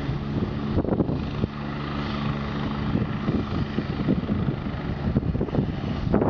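Twin-turbine AgustaWestland AW109 helicopter running on the ground, a steady hum of several tones over a noisy rush.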